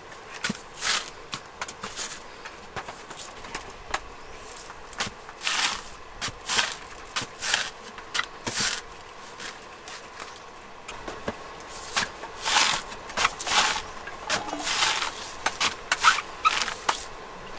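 Young green coconuts being shaved against a fixed upright blade: short scraping strokes as the husk is cut away, one every half second to a second in irregular runs, with a pause of a couple of seconds partway through.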